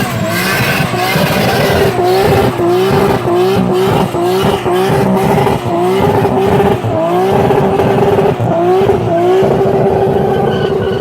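A 2JZ inline-six swapped into a Subaru STI doing a burnout: the engine held at high revs, repeatedly dipping and climbing again about twice a second, over a steady tyre squeal.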